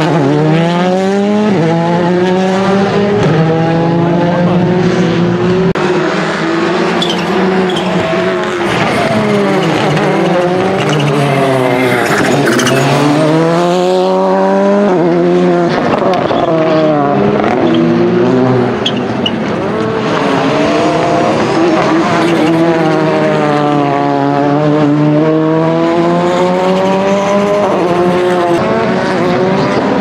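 Rally cars' engines revving hard through a bend one after another: a Skoda Fabia rally car, then a Volkswagen Polo GTI Rally2, then a Peugeot 207 S2000. The pitch climbs and drops repeatedly as each car accelerates, shifts and lifts off, with tyres squealing on the tarmac.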